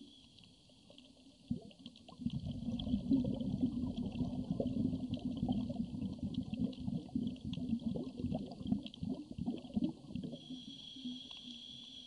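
Scuba diver's exhaled air bubbling out of a regulator underwater: a long, crackling, gurgling rumble of bubbles that builds about two seconds in and dies away near the end, followed by a faint hiss of the next breath drawn through the regulator.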